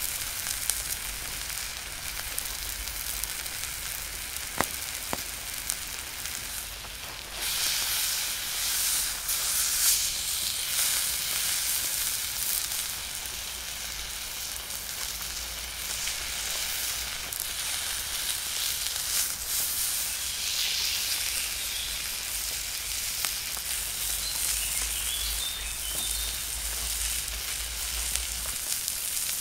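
Tomahawk steak sizzling on a hot cast iron skillet, a steady hiss that grows louder about seven seconds in, with a few sharp pops.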